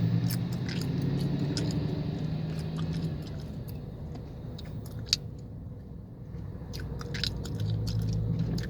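Gum chewing close to the microphone: irregular wet smacks and clicks, one sharper click about five seconds in, over the low steady hum of a car in slow traffic.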